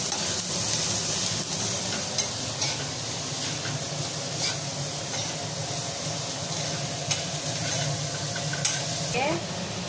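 Chopped onions sizzling in hot mustard oil in a stainless steel frying pan while being fried to brown. A metal spoon stirs them, clinking against the pan now and then.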